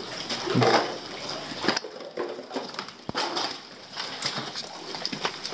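Footsteps and rustling on debris-strewn ground, irregular clicks and scuffs, with a steady hiss of rain behind them. The loudest moment is a low sound a little under a second in.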